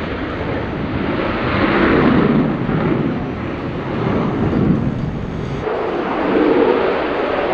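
F-16 Fighting Falcon's jet engine at high power as the fighter climbs away after takeoff, a loud rushing roar that swells and fades. The deep rumble drops away abruptly about six seconds in.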